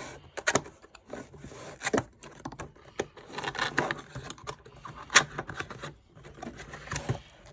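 Cardboard keyboard box being opened and handled by hand: rubbing and scraping of cardboard, with scattered sharp taps and knocks, the loudest a little past the middle.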